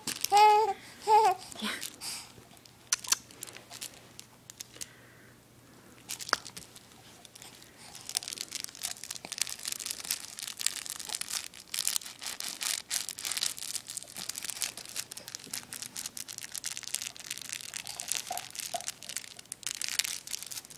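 A baby coos a few times in the first second or two. From about eight seconds in, steady crinkling and rustling as a soft baby toy is handled and mouthed.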